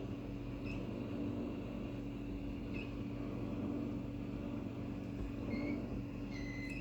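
Samsung dishwasher running with a steady droning hum, over which a few faint short high chirps sound, the noise its owner calls horrible.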